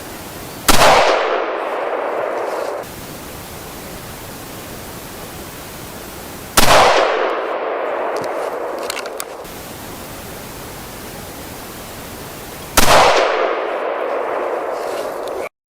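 Three rifle shots from the .222 Remington barrel of a Valmet 412 combination gun, about six seconds apart. Each shot is followed by a couple of seconds of echo rolling away.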